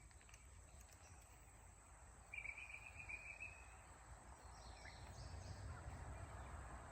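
Quiet outdoor stillness with a single animal call about a second long a couple of seconds in, then the low rumble of an approaching car slowly building toward the end.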